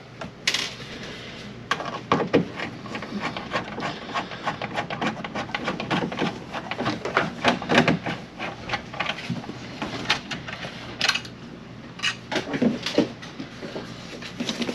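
Quick irregular clicks, knocks and rattles of hand tools and small hardware on a wooden cabinet, as a cabinet door is taken off under a sink. The clatter is densest in the middle.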